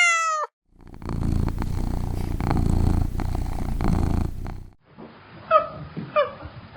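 Domestic cat purring steadily for about four seconds, a low rumbling sound, after a short pitched call that ends at the very start. Near the end, crows begin cawing, two loud caws about half a second apart.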